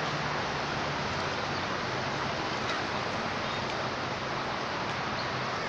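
Steady rushing background noise, with a few faint clicks.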